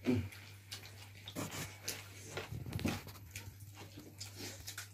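People chewing and lip-smacking while eating chicken by hand: scattered short wet clicks and smacks over a low steady hum.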